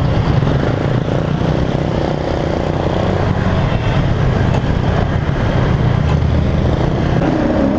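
Motorcycle engine running steadily on the move, under a constant rush of wind and road noise.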